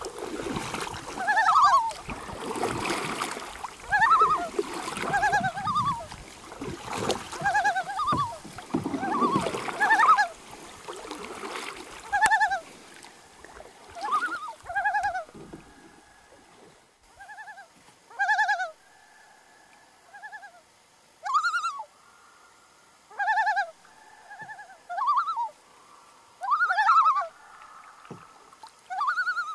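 Common loon calling: short, wavering calls repeated every second or two. Over the first half, canoe paddle strokes splash in the water, fading out about halfway through.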